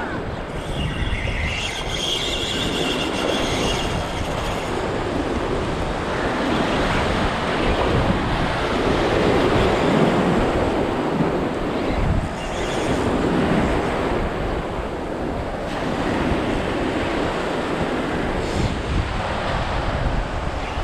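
Surf breaking and washing around the shallows, with wind buffeting the microphone. About a second in, a high whirring from the Savage Gear Stealth 4000 spinning reel runs for about three seconds.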